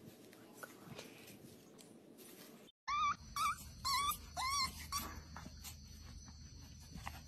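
Young puppy squealing: a quick run of about five short, high-pitched cries in under two seconds, each rising and falling in pitch. Before it, only faint rustling.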